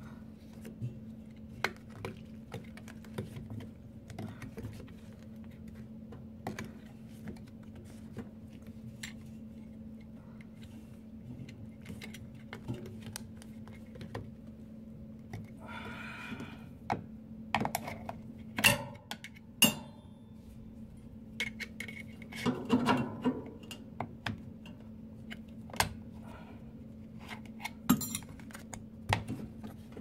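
Scattered clicks, taps and small clinks of a wire spring hose clamp and a rubber drain hose being worked back onto a washing machine's plastic drain pump outlet by hand, with a few sharper clicks a little past halfway, over a steady low hum.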